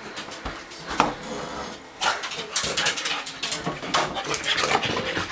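A French bulldog scrambling about a bathroom in his post-bath frenzy: a dense run of scuffling, rustling noises from about two seconds in, after a sharp knock about a second in.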